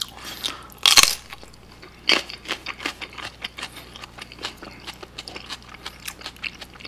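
A person bites into a raw green chili pepper with one loud crunch about a second in, then chews it with a run of short, crisp crunching clicks.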